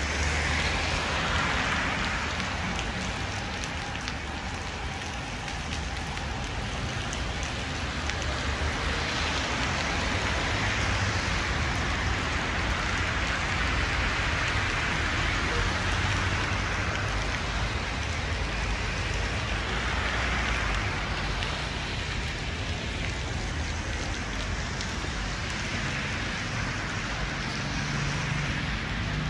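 Heavy rain pouring and splashing on wet pavement in strong wind, a dense steady hiss that swells and eases in waves every few seconds.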